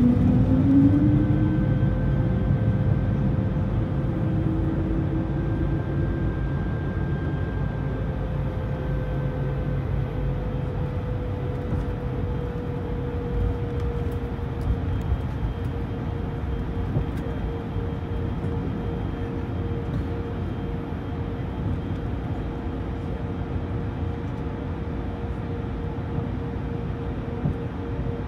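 Cabin noise of an Airbus A220-100 on the ground, its Pratt & Whitney PW1500G geared turbofans running at low taxi thrust: a steady rumble with a steady engine whine. A brief rising tone at the very start, and the overall level eases down slowly.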